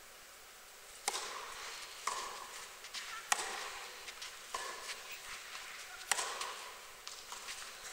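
Tennis ball struck by rackets in a serve and rally on a clay court: sharp pops a second or so apart, starting about a second in, with fainter knocks between and a brief echo after each hit in the indoor arena.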